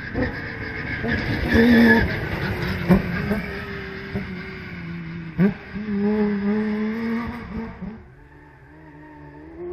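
Off-road race vehicle's engine revving hard, its pitch rising and falling through gear changes, over the hiss of tyres on loose gravel. There are a couple of sharp knocks. About 8 seconds in it gives way to a quieter, more distant engine drone.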